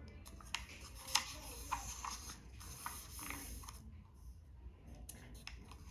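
Pages of a book being turned: a run of crisp paper flicks and rustles, with a short lull about two-thirds of the way through.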